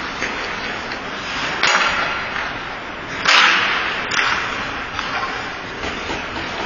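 Ice hockey play: a steady hiss of skates on the ice, broken by two sharp cracks of sticks and puck, about a second and a half in and, louder, just past three seconds.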